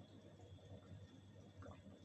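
Near silence: a faint steady low hum with a few soft, scattered crackles from food simmering in a kadai under a steel-plate lid.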